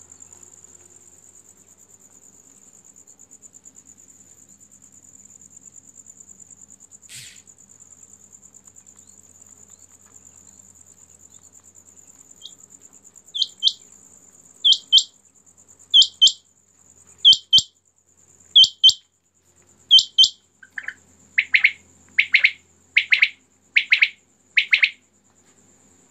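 Caged male quail (batair, common quail) calling, starting about halfway through: six sharp doubled notes about a second and a half apart, then a quicker run of lower notes near the end. A steady high trill runs underneath.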